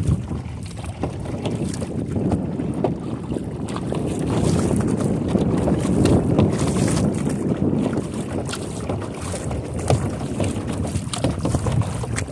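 Wind buffeting the microphone, with water splashing and lapping from the strokes of a double-bladed kayak paddle.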